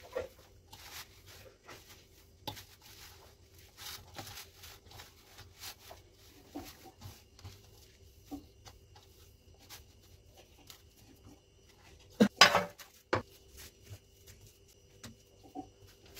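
Hands squeezing and working crumbly khoya in a stainless steel bowl: soft scuffing with light clicks against the metal, over a faint steady hum. About twelve seconds in there is a brief loud clatter of metal dishes, the loudest sound.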